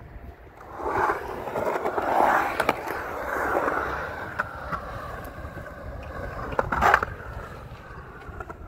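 Skateboard wheels rolling over rough concrete in a skatepark bowl. The rolling noise swells about a second in, with a few sharp clicks and a loud clack near seven seconds.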